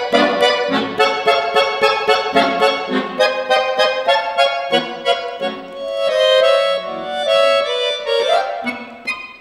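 Piano accordion playing solo: a fast, rhythmic dance melody in the right hand over regular left-hand bass-and-chord accents. About six seconds in come a few held notes, then a quick rising run, and the playing softens near the end.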